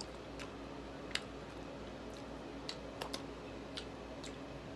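Scattered sharp clicks and smacks of eating boiled seafood by hand, about eight of them, the loudest about a second in, over a low steady hum.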